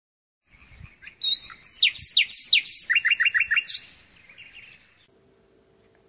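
A songbird singing: a run of varied high chirps and whistles, then a quick trill of falling notes, stopping about four seconds in.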